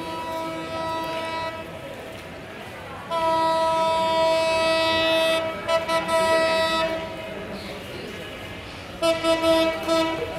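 Horn of the approaching Ekota Express locomotive sounding repeatedly: a blast that ends about a second and a half in, a long loud blast of nearly four seconds starting about three seconds in, then a few short toots near the end.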